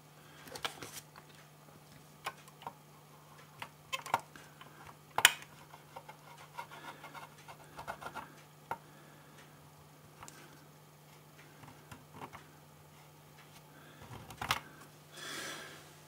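Scattered small clicks, taps and light scratches of fingers handling and pressing a strip of aluminium foil onto the plastic membrane keypad of a microwave touch panel. The sharpest click comes about five seconds in, over a faint steady low hum.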